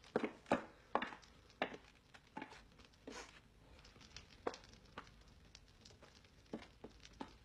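Irregular light knocks and clicks, several in the first second and a half and then more scattered.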